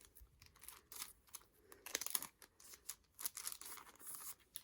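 Packaging being handled and opened as a photobook set is unboxed: irregular rustling, crinkling and tearing, in short clusters, with the busiest stretch in the second half.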